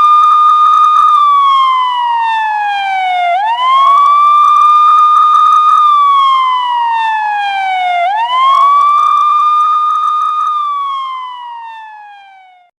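Police car siren in a wail pattern: the tone rises quickly, holds high for a second or so, then slides slowly down, repeating about every four and a half seconds. It fades out near the end.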